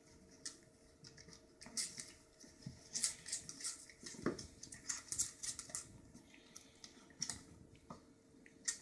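Toy poodle and cat play-wrestling: quiet scuffling with scattered clicks and scrapes, busiest in the middle.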